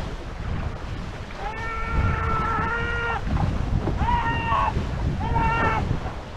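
Wind on the microphone and water rushing past a sailing catamaran make a steady low rumble. Over it come three drawn-out pitched calls: the first is long and held level for about two seconds, and the other two are shorter.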